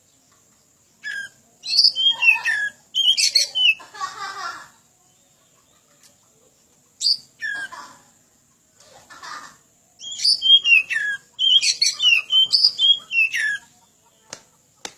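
Oriental magpie-robin (kacer) singing loud, rapid bouts of whistled and chattering notes that sweep up and down in pitch. Three bouts, broken by short pauses.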